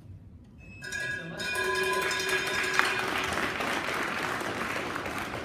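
Audience applauding, with a few seconds of music starting about a second in alongside it.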